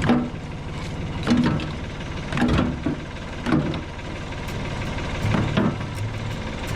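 Tractor engine idling steadily, with several short, heavy clunks over it, about one a second at first.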